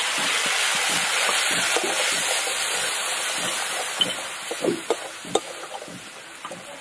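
A splash of water hitting hot oil, fried onions and ground spices in a metal kadai sizzles loudly in a steady hiss that fades over several seconds. About four seconds in, a flat spatula starts stirring and scraping the pan in short strokes.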